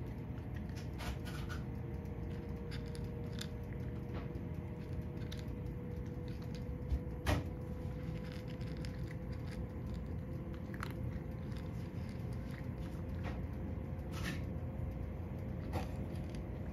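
A cat eating dry kibble from a dish: irregular small crunches and clicks as it chews, with one sharper click about seven seconds in, over a steady low hum in the background.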